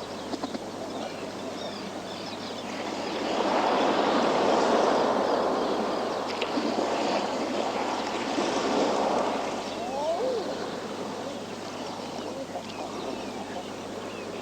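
Sea waves washing against a rocky shore. One surge builds about three seconds in, holds for several seconds, then eases back.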